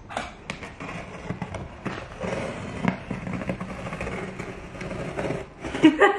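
A utility knife slicing through packing tape and cardboard on a shipping box, an uneven run of scraping and crackling with sharp little snaps as the blade cuts.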